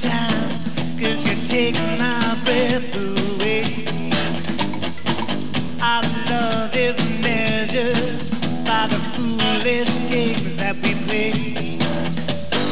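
Live rock band playing a mid-tempo song with a male lead vocal: electric guitar, bass, keyboards and drums under a steady beat.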